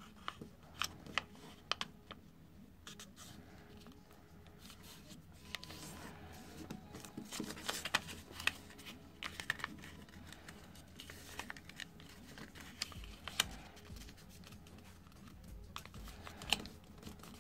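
Faint rustling and crinkling of a sheet of paper being folded by hand, with scattered sharp ticks as fingers press and run along the creases.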